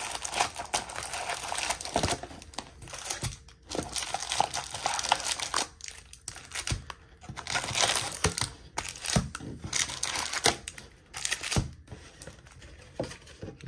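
Foil trading card pack wrappers crinkling and rustling as a handful of Topps baseball packs are pulled out of a cardboard hobby box and stacked on a desk, with a few short knocks as the packs are set down.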